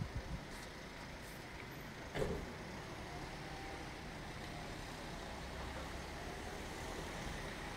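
Steady low hum of distant motor traffic, with a single short knock about two seconds in.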